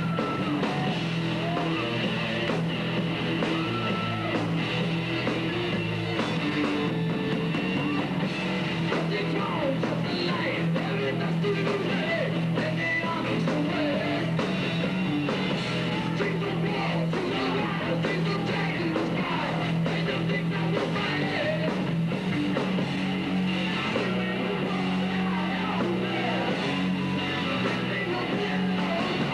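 Amateur rock band playing live: electric guitars, bass and drums with a singer.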